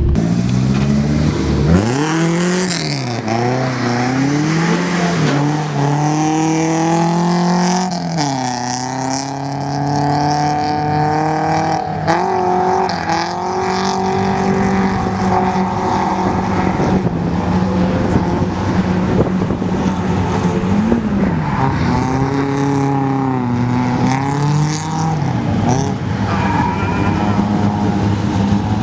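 Nissan 240SX drift car's engine revving up and falling back again and again through a drift run, with tyre squeal over it.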